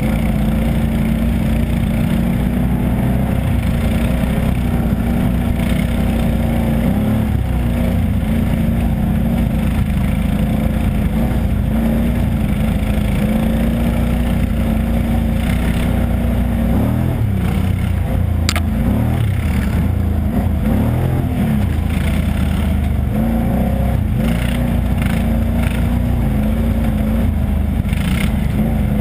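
ATV engine running steadily as it is ridden along a dirt trail, its pitch dipping and rising a few times around the middle of the stretch as the throttle changes, with occasional knocks and rattles from the machine over the rough ground.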